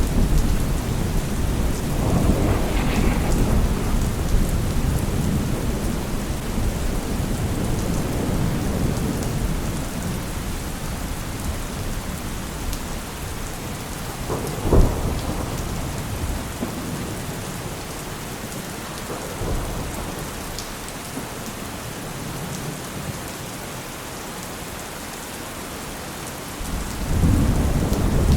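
Heavy rain falling steadily with thunder: a low rumble at the start dies away over about ten seconds, a short sharp clap comes about fifteen seconds in, and another rumble builds near the end.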